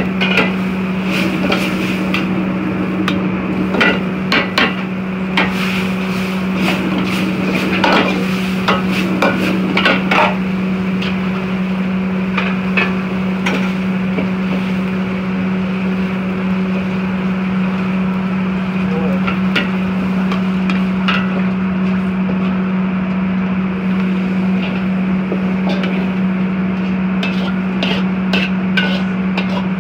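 Steel ladle knocking and scraping against a wok as noodles are stir-fried, in irregular clusters of sharp clanks, over a steady low hum from the wok station.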